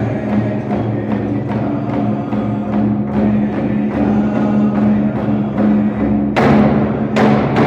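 Indigenous drum group singing in unison over a large shared hand drum beaten in a steady pulse of about two strokes a second. Near the end come three much harder strikes, with the ringing fading after the last.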